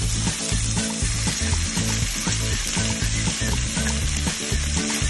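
Meat and shrimp sizzling in a hot frying pan as shredded white cabbage is tipped in, over background music with a steady beat.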